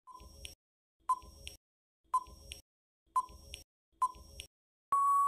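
Quiz countdown timer sound effect: five short ticks about a second apart, each a brief beep followed by a click, then a long steady beep near the end as the time runs out.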